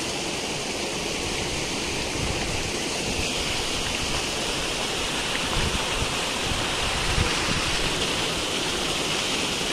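Shallow stream water rushing and splashing steadily over rubble and debris, with a few dull low thuds of feet wading through it about halfway through.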